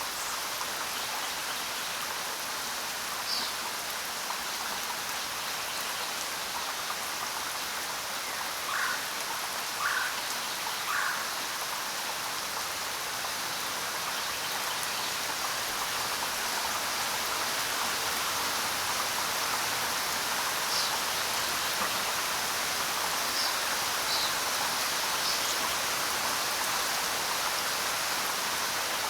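Steady rain falling on the ground: an even, continuous hiss of many drops. A few brief, sharper sounds stand out above it, three of them about a second apart roughly ten seconds in, and a cluster a little past twenty seconds.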